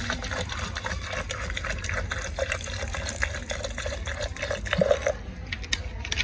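Water poured in a thin stream into a plastic blender jar, splashing onto sliced guava; the pour stops about five seconds in, leaving a few light clicks.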